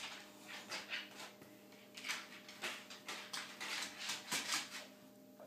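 A dog making a string of short breathy sounds without a clear pitch, about one or two a second.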